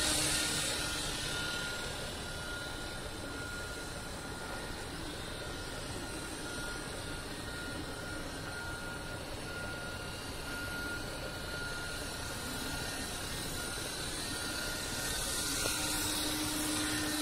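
Radio-controlled model helicopter flying with a steady rotor and motor whir. It is louder at the start and again near the end as it comes closer.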